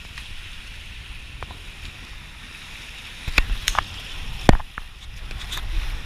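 Water rushing down a water slide under a rider, a steady hiss, then a run of sharp knocks and thumps from about three seconds in, the loudest near four and a half seconds, as the ride bumps along the chute.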